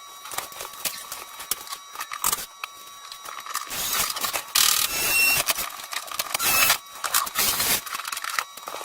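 Irregular clicks and knocks of hand work on hard material, with louder scraping bursts through the middle and latter part.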